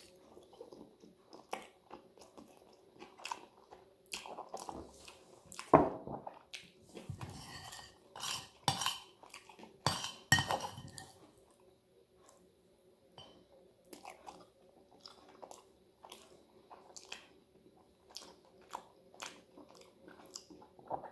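A metal fork and spoon clinking and scraping against a plate while twirling and scooping spaghetti, with chewing in between. The clinks come irregularly, busiest in the first half, with one sharp clink about six seconds in.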